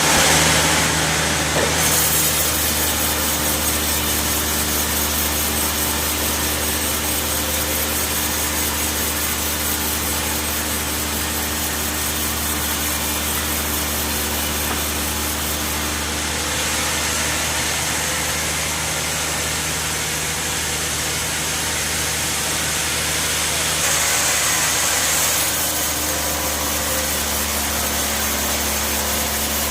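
Sawmill band saw running steadily with its blade cutting through an oak log, a constant low machine hum under a dense hiss of sawing. The hiss grows briefly louder near the start and again later on.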